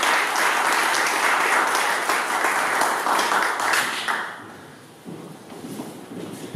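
Audience applauding a choir, with dense clapping that dies away about four seconds in.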